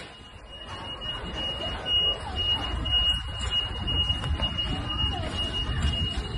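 A high-pitched electronic alarm sounding in long pulses with short breaks, over low street rumble and faint voices.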